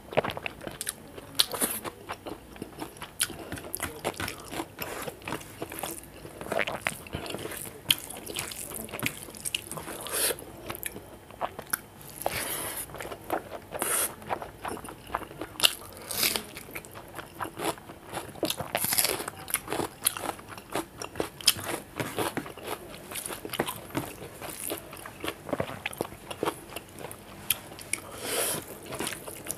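Close-up eating sounds of a man chewing mouthfuls of rice and curry eaten by hand, with irregular crunchy bites and the soft sounds of fingers mixing rice on the plate.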